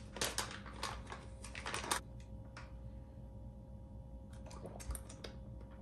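Crinkling and clicking of MRE drink pouches being handled, thick for about the first two seconds, then only a few scattered ticks.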